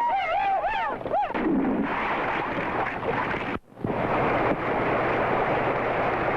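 A run of quick rising-and-falling pitched cries in the first second, then a dense, steady rushing noise with a brief cut a little over halfway through.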